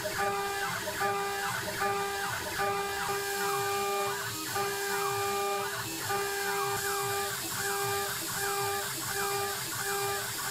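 CNC router's 1.5 kW spindle running at a steady high pitch while a small end mill cuts aluminium, with the stepper motors whining in repeating rising and falling glides as the axes trace the curved inside of the ring. A steady hiss runs underneath.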